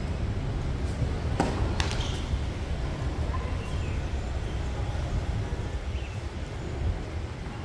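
Tennis ball knocks: two sharp hits less than half a second apart, about a second and a half in, over a steady low rumble.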